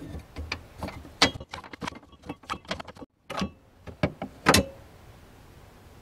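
Plastic spare-tire hold-down retainer being spun off its threaded rod by hand and lifted off: a run of small clicks and rattles, with a louder knock about a second in and another near the end.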